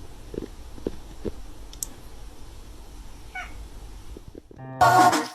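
A cat meows once, a short high falling cry, over quiet room noise with a few soft knocks. Near the end, loud music cuts in.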